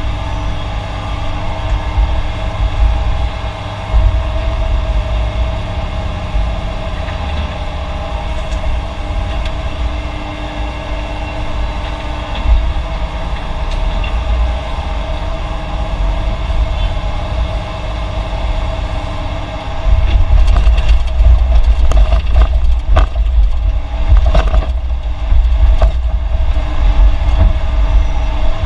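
Heavy diesel construction machinery running steadily, with a deep rumble and a steady engine drone. About two-thirds of the way in it gets louder, with a run of sharp knocks and clatter.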